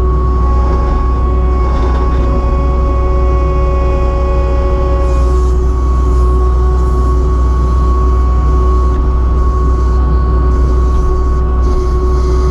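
Kubota SVL75-2 compact track loader's diesel engine running steadily under work, a deep drone with a steady high whine over it; one of the whining tones stops about five seconds in.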